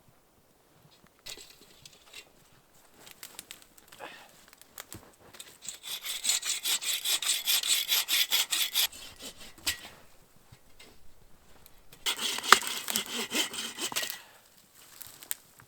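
Hand saw cutting wood in two runs of quick, even back-and-forth strokes, the first about three seconds long and the second about two, with faint scuffing between them.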